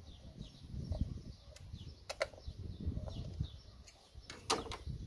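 Small birds chirping over and over, with a few sharp clicks and low thumps of screwdriver work at an engine's ignition coil connector. The loudest click comes near the end.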